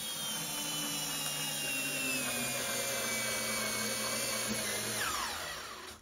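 Cordless drill driving a scored floor screw into a wooden floorboard through a depth-control guide, its motor whine sagging slowly in pitch under load, then winding down and stopping about five seconds in.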